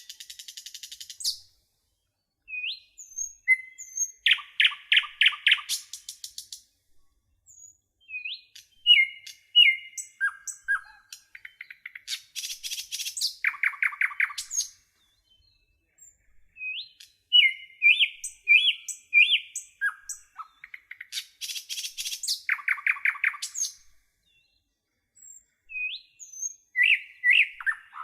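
A songbird singing loud, varied song phrases separated by short pauses: clear whistled notes, rapid trills and fast runs of repeated notes.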